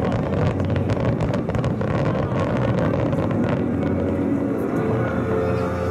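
Distant fireworks crackling: a dense run of sharp pops and crackles for about the first three and a half seconds, thinning out after that, over a steady low rumble.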